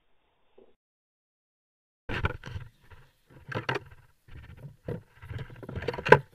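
Near silence for about two seconds, then irregular knocks and rustling noise on a fishing boat's deck.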